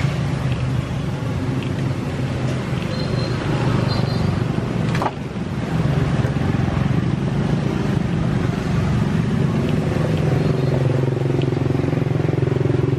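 A motor running steadily with a low hum, with a sharp click and a brief dip in level about five seconds in.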